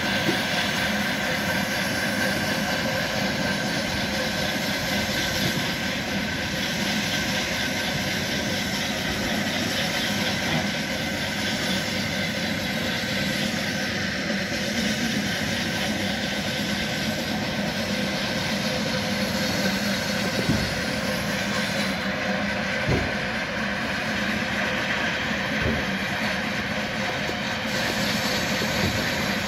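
Engine-driven machinery running with a steady, unchanging drone. A few brief low thumps come through in the second half.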